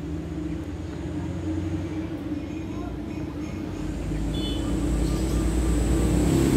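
Low engine rumble of a nearby motor vehicle, growing steadily louder over the last few seconds.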